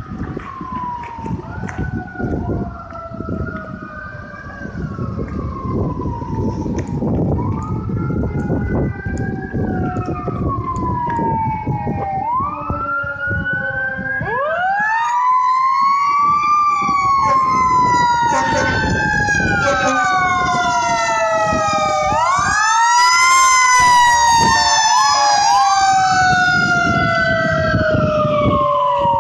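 Emergency sirens wailing in repeated sweeps, each a quick rise and a slower fall, growing louder as a Pierce Saber fire engine approaches with an ambulance behind it. From about halfway two sirens overlap, over a steady rumble of engine and road noise.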